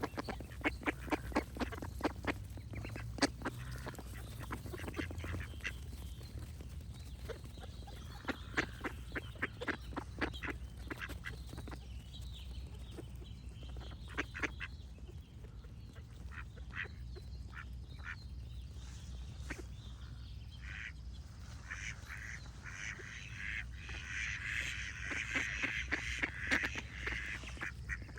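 Ducks quacking in runs of quick, repeated calls, with songbirds singing in the background. The calls thicken into a dense chorus for a few seconds near the end.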